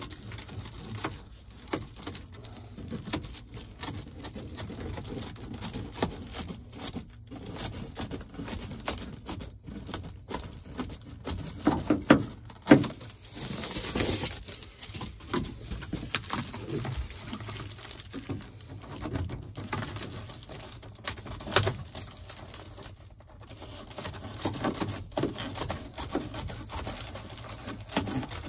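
Irregular light knocks, clicks and rustling from hand work trimming back material inside a van, with a brief hiss near the middle.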